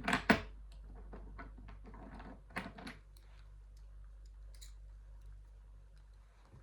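Small metal clicks and taps of an Allen key being fitted and fiddled into a Kaba 20 padlock, with two sharp knocks right at the start and scattered clicks for about three seconds, then only faint handling.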